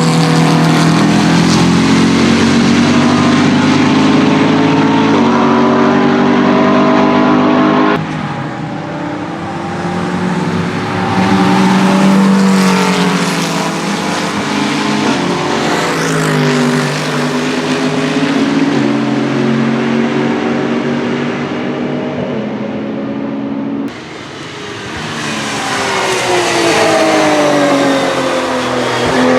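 Racing car engines running hard on track, shifting through the gears and passing by, their pitch stepping up and falling away. The sound breaks off abruptly twice, about a third of the way in and again about four-fifths of the way through, as one car's sound gives way to another's.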